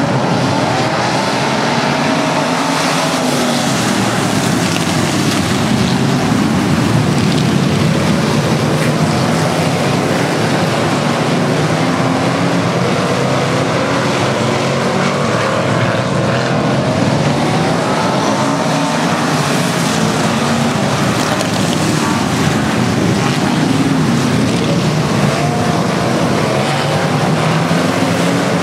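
A pack of dirt-track Sport Modified race cars racing together at full throttle, a loud, dense mix of engines whose pitches keep rising and falling as the cars pass and work through the corners.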